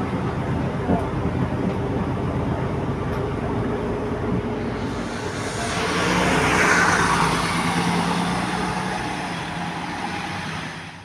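Articulated city bus: first the steady drone of its engine and running gear heard from inside the cabin, then, from the roadside, the bus pulling away from the stop. A louder rush of engine and tyre noise swells about six seconds in, its pitch falling as the bus passes, then fades as it drives off.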